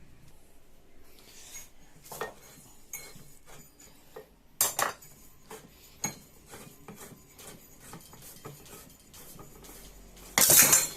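Metal tools clinking, tapping and scraping against a scooter's secondary pulley while its small, tightly pressed-in bearing is worked out, with a sharp burst of metallic noise near the end.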